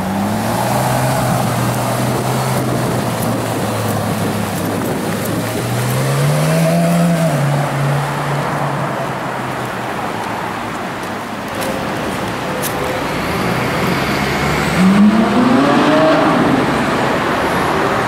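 Ferrari 458 Italia's V8 engine running at low revs, rising and falling in pitch once about six seconds in, then climbing in pitch again under acceleration near the end, its loudest moment.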